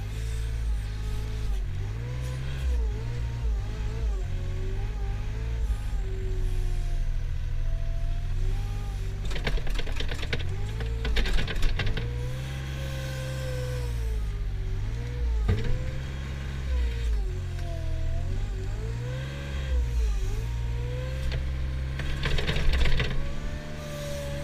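Mustang compact wheel loader at work: its engine runs under load while the hydraulic whine rises and falls over and over as the bucket pushes into a pile of grass clippings and the boom lifts. Twice, about ten seconds in and again near the end, there is a louder stretch of rapid clatter.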